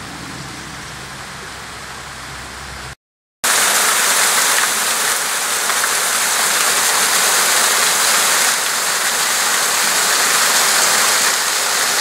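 Small mountain waterfall splashing into a shallow rock pool: a steady rush of falling water. It is softer at first, heard from farther off; after a brief dropout about three seconds in, it comes back much louder and fuller, close to the falls.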